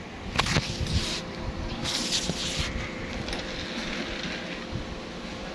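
Rustling and a few knocks right on a phone's microphone as it is handled, with two hissing bursts in the first three seconds over a steady low rumble.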